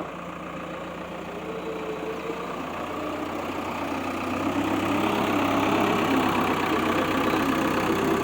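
JCB backhoe loader's diesel engine running, growing louder from about three seconds in as it works harder, with a wavering drone.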